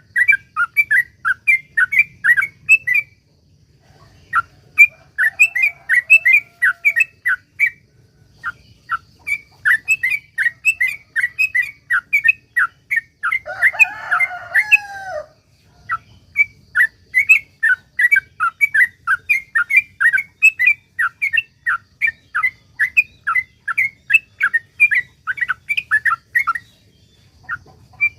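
Yellow-vented bulbul singing its long, rapid chattering 'ropel' song: quick runs of short bubbly notes in several long bursts with brief pauses. About halfway through, a different, lower call briefly cuts in.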